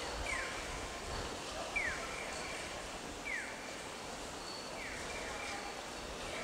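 A short falling chirp repeating at an even pace, about once every second and a half, over a steady wash of street noise and faint voices.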